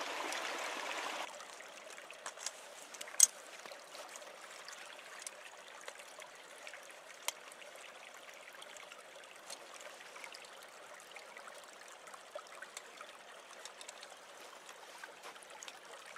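Creek water running, dropping to a quieter trickle about a second in. Then scattered small clicks and knocks as a steel trap and its chain are handled in shallow water, with one sharp click about three seconds in.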